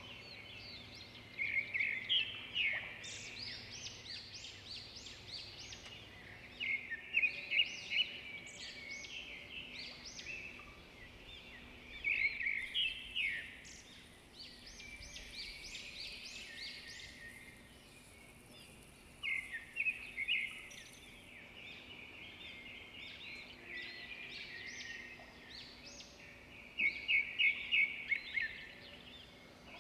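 Songbirds singing. One bird repeats a short, loud phrase of quick notes about every five or six seconds, five times in all, over quieter continuous twittering.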